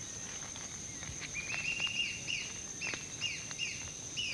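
Forest ambience: a steady high-pitched insect drone, with a bird's short chirps repeated two or three times a second from about a second in.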